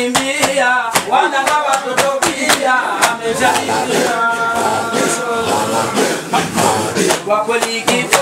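A group of men chanting an Islamic dhikr, their voices rising and falling, with sharp percussive hits cutting through the chant. About four seconds in, a single held note rings out for over a second.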